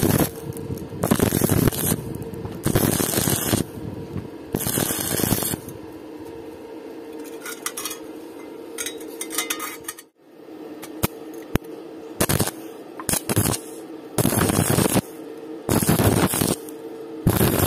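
Stick (SMAW) arc welding with a flux-coated electrode on steel pipe and square tube: the arc crackles and hisses in repeated bursts about a second long, broken by short pauses. A steady hum runs underneath, and a few light clicks sound in the quieter middle stretch.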